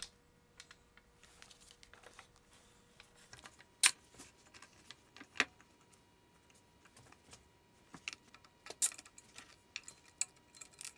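Metal clamps clicking and knocking as red-handled F clamps are fitted onto a bar clamp and tightened against a wooden tabletop. Scattered light clicks, with a few sharper knocks about four, five and a half, and nine seconds in.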